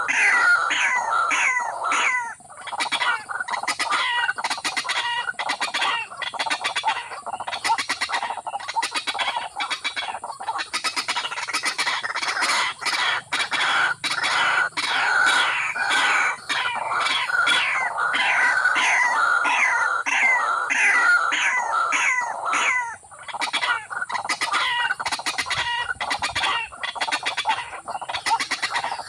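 Loud, harsh calls of a rail such as a waterhen, repeated rapidly and almost without a break, pausing briefly about two seconds in and again near twenty-three seconds. A steady faint high whine runs underneath.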